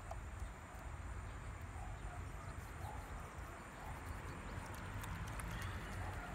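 Faint outdoor background: a steady low rumble of wind on the microphone, with soft rustling and a few small ticks as wet hands are rubbed together.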